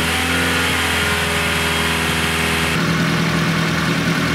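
1976 Chevy LUV's four-cylinder engine running steadily with the radiator cap off while the cooling system is refilled. About three seconds in the sound changes, the low end turning into an even pulsing.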